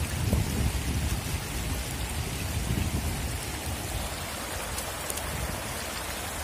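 Shallow river water rushing over rocks and stones: a steady wash of noise with a deep rumble underneath, a little louder in the first second.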